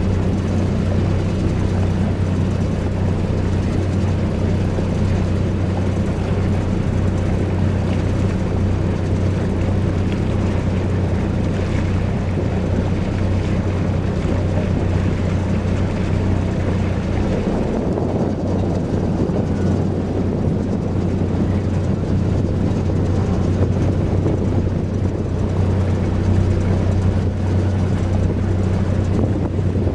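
Excursion boat's engine running steadily underway: an even low drone, with a rushing hiss above it.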